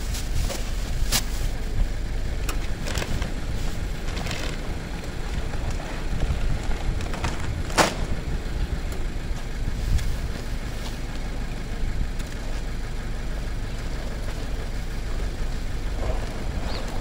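Plastic trash bags rustling and crackling as they are hauled out of a metal dumpster and dropped on pavement: a handful of short sharp crackles, the loudest about eight seconds in, over a steady low rumble.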